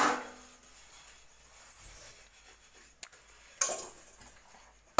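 Steel utensils clanking as pots and plates are handled for washing: a clank with a short ring at the start, a sharp click about three seconds in, and a brief clatter just after it.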